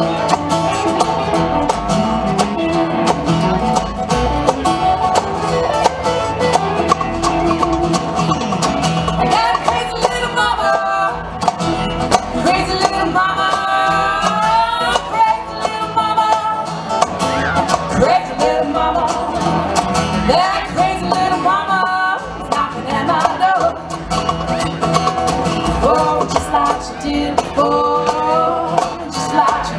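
A live country-bluegrass band plays an upbeat song: strummed acoustic guitars, electric guitar and upright bass, at a steady level. A voice sings over the band in stretches.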